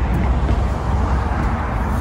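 Steady rumble of road traffic, heaviest in the low end.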